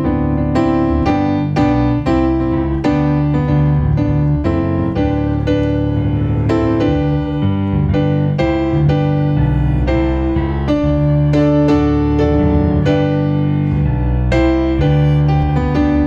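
Electric piano chords played on a Yamaha Motif XF8 keyboard through a small amplifier, a steady instrumental accompaniment with a new chord or note about every half second.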